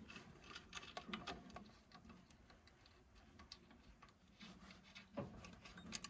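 Faint, irregular light clicks and taps of metal hardware and hand tools being handled while lock nuts are fitted on the engine mounting bolts.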